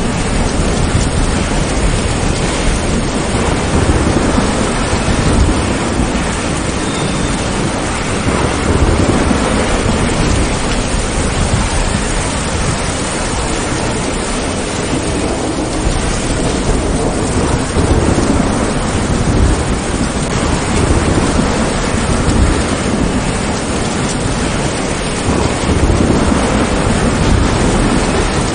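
Steady heavy rain with low thunder rumbling, swelling and fading several times.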